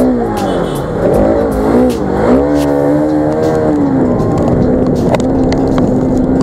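Bajaj Pulsar RS200's single-cylinder engine revving up and down as the bike pulls away through gear changes, then holding a steady note while cruising on a wet road. Scattered light ticks of rain hit the camera.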